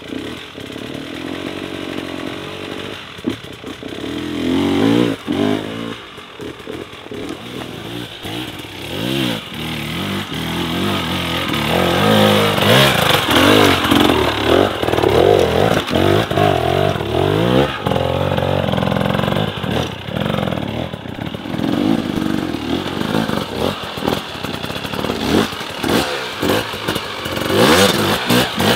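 Hard enduro dirt bikes' two-stroke engines revving hard in repeated bursts, the pitch climbing and dropping over and over as the bikes are worked up a steep rocky climb.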